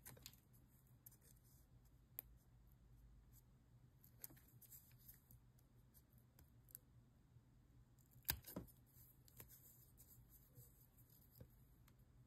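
Small scissors snipping the edge of a leather cutout: faint, scattered snips, the loudest a quick pair about two-thirds of the way in.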